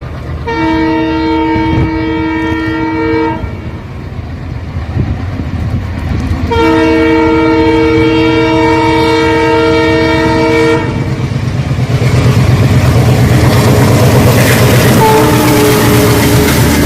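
Twin WDM-3D diesel locomotives sounding their horns in two long blasts, the first about three seconds long and the second about four. After that the train passes close by with a loud, rhythmic clatter.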